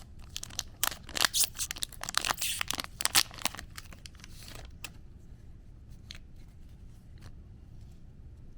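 Trading-card booster pack wrapper being torn open and crinkled by hand: a dense run of crackles over the first few seconds, then only a few faint ticks.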